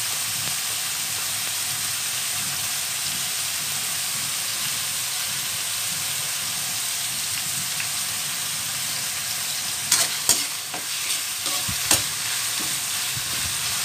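Diced ham and garlic sizzling steadily in hot oil in a metal wok. From about ten seconds in, a metal spoon stirs it, with a few sharp clinks and scrapes against the pan.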